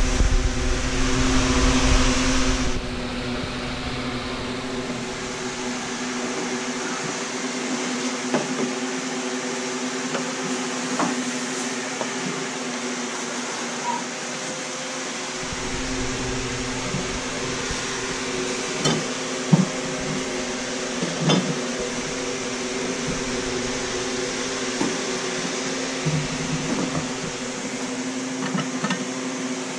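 Steady machine hum with several low steady tones, such as a fan or air-conditioning unit makes, with a few light knocks from glass and ceramic pieces being handled. A louder rush of noise fills the first few seconds.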